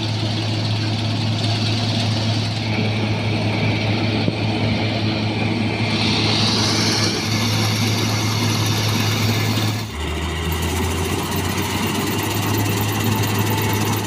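New Holland 3790 combine harvester running while it cuts wheat: a steady low engine drone with machine noise. About ten seconds in, the sound dips briefly and the engine note drops lower.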